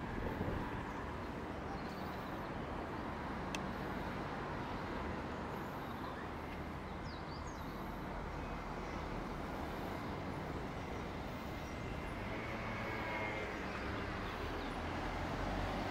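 Steady town traffic hum from the road beside the bridge, with a motor vehicle drawing nearer and getting louder over the last few seconds.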